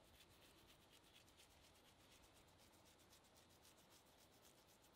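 Very faint, fast, even scratchy rustle of dried parsley being rubbed and crumbled between fingertips as it is sprinkled.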